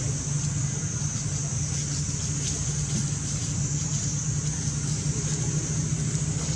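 Steady outdoor ambience: a continuous low rumble under a steady high hiss, with no distinct event standing out.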